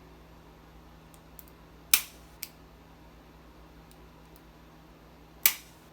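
Chiropractic activator adjusting instrument firing: two sharp spring-loaded clicks about three and a half seconds apart, the first followed half a second later by a fainter click.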